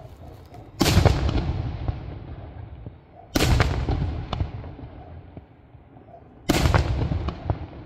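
Fireworks going off: three loud bangs about three seconds apart, each followed by a rolling echo that fades away over a couple of seconds.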